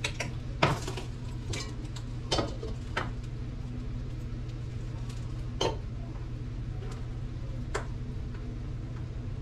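Metal cookware clinking at the stove: a spoon and pot lid knocking against a pot and skillet in a handful of separate clinks, over a steady low hum.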